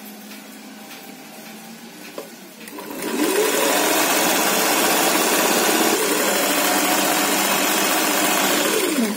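Sewing machine stitching down a folded sleeve hem. It speeds up about three seconds in, runs at a steady speed for about six seconds, then slows to a stop near the end.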